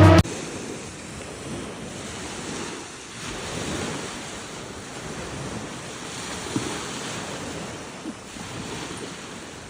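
Background music cuts off at the start, then small waves wash onto a beach, swelling and easing, with wind rumbling on the microphone.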